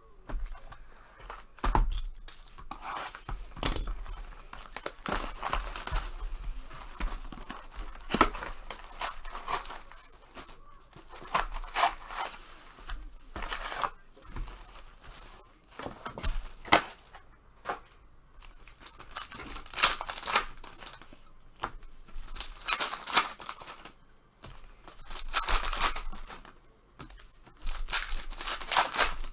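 Trading-card pack wrappers being torn open and crinkled by hand, in repeated irregular bursts of rustling and tearing, busiest in the second half.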